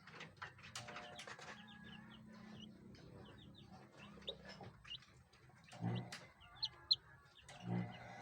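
Birds chirping softly, with two dull thumps, about six and nearly eight seconds in.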